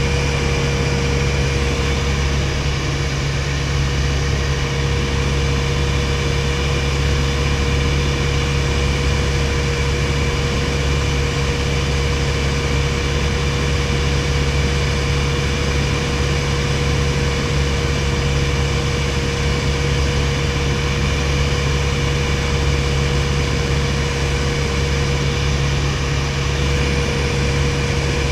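A Piper PA-22-108 Colt's four-cylinder Lycoming O-235 engine and propeller drone steadily in flight, heard from inside the fabric-covered cabin. The pitch and level hold even throughout.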